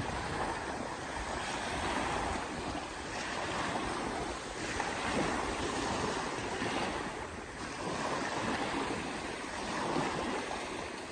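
Small sea waves breaking and washing up a pebble beach, swelling and easing every few seconds, with some wind on the microphone.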